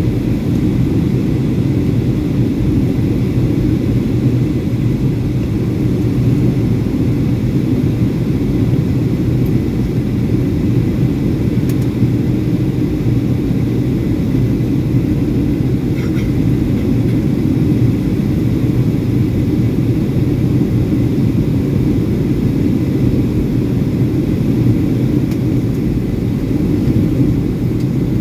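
Steady low rumble of a Boeing 757-200's jet engines and the airflow past the fuselage, heard from inside the passenger cabin as the airliner is on approach.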